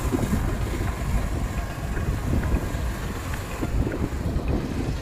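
Wind rushing over the microphone together with the road and engine noise of a car driving along, a steady rumbling noise.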